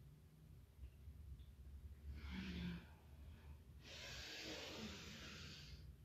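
A woman's audible breaths during a standing yoga breathing exercise: a short breath about two seconds in, then a longer, fuller one from about four seconds that fades near the end.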